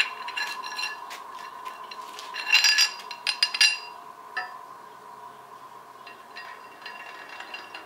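Steel parts of a screw press clinking and knocking against a D115 engine block as the press is fitted inside the block to press in the camshaft bushings: a sharp click at the start, a cluster of ringing metallic clinks a couple of seconds in, and fainter clinks near the end.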